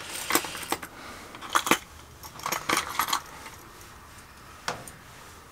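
Fishing lures with metal hooks clinking against each other and a plastic tackle box as it is rummaged through by hand: irregular light clicks and jingles.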